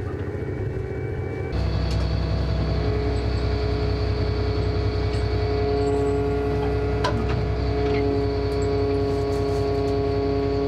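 Fishing trawler's deck machinery: the steady drone of the engine and the trawl winch, with several held whining tones on top. About a second and a half in, the machinery steps up and gets louder as the winch is worked to pay the trawl back out. A single clank comes partway through.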